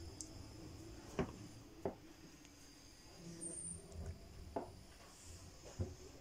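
Quiet room tone with a few faint, scattered knocks: footsteps of someone walking across a cabin floor.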